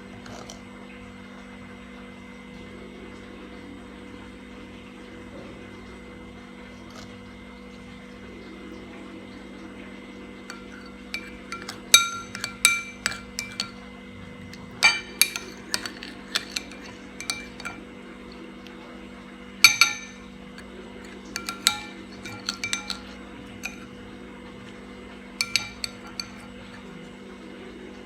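A spoon clinking irregularly against a glass, each tap ringing briefly, starting about ten seconds in and stopping a couple of seconds before the end. A steady low hum runs underneath.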